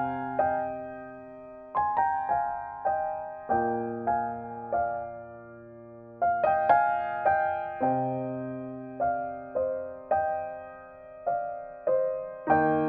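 Background piano music: a slow, gentle piece of single notes over held chords, each note struck and left to fade, with short runs broken by lingering chords.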